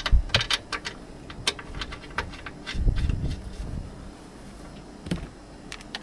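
Small metal parts and hand tools being handled: irregular clicks and clinks, with a thump right at the start and a low scuffing rumble about three seconds in.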